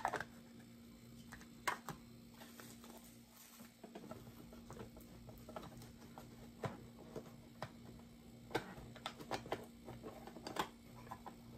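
Irregular light clicks and rustles of diecast model cars in plastic bags and clear plastic cases being handled and sorted in a cardboard box, over a low steady hum.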